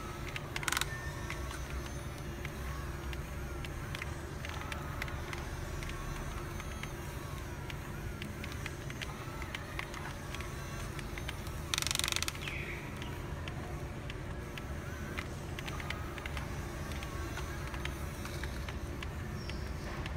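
Radio-controlled CAT 320D long-reach model excavator working its arm and bucket in sand: a steady low motor hum with small clicks. A short loud hiss comes about a second in and again, longer, about twelve seconds in.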